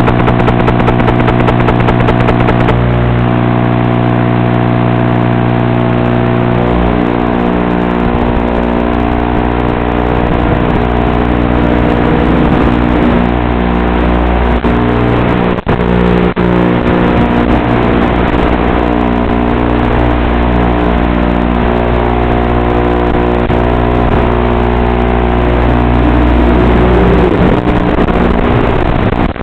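FPV quadcopter's electric motors and propellers humming and whining continuously, picked up onboard. The pitch shifts with the throttle and glides up and down near the end.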